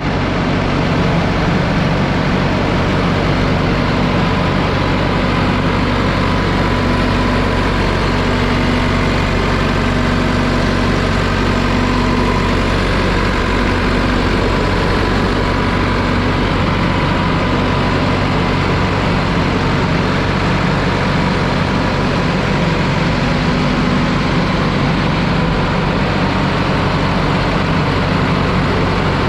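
2010 JCB 4CX backhoe loader's diesel engine idling steadily, with no revving.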